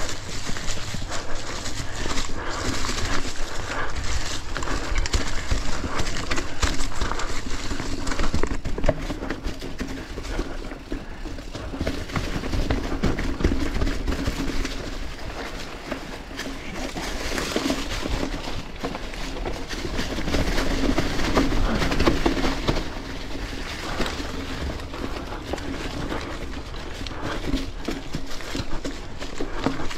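Mountain bike riding a rough technical trail covered in leaves: tyres crunching over leaves, roots and rocks with a constant irregular clatter of the bike over bumps, getting louder and quieter as the terrain changes.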